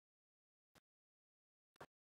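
Near silence, broken by two faint, very short clicks: one just under a second in and one near the end.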